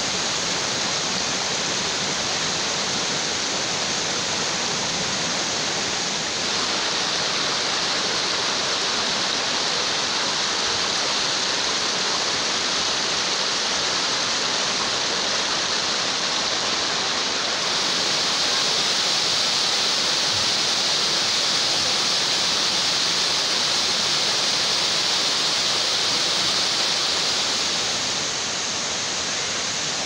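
Steady rush of water from a mountain waterfall and river, an even hiss with no rhythm, its tone shifting slightly a few times.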